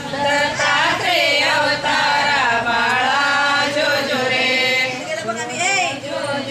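A group of women singing a Ram Navami palna, the devotional cradle song for Rama's birth, together in a chant-like melody.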